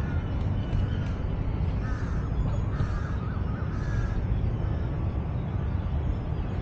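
Crows cawing: several short, harsh calls close together about two to four seconds in, over a steady low rumble.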